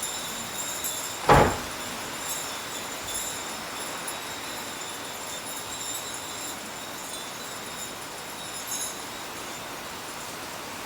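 Steady rain falling, an even hiss, with one sharp knock about a second in.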